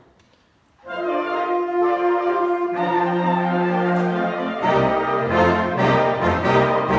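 Orchestral music starting about a second in: strings and brass holding sustained chords, with lower notes joining about three seconds in.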